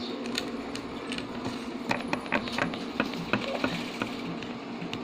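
Scattered light clicks and rattles of small plastic toys being handled and set in place, over a faint steady hum.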